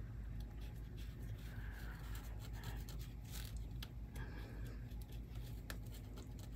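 Faint scratching of a Sharpie marker drawn around the base of a thread cone on fabric, marking the curve for a rounded corner, with a few light clicks over a steady low room hum.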